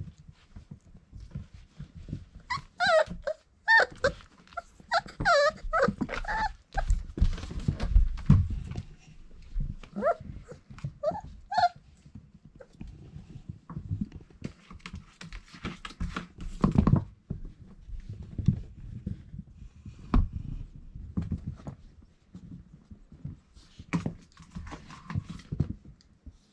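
Four-week-old Irish Setter puppies playing, giving high yips and squeals in two clusters in the first half, among low thumps and scuffling.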